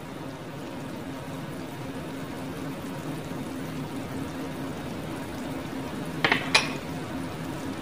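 Chopped chilli and garlic frying in oil in a pan, a steady sizzle over a low hum. About six seconds in come two sharp knocks in quick succession.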